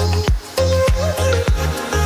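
Background music: a track with a deep bass, drum hits that drop in pitch on a regular beat, and a wavering melody line above.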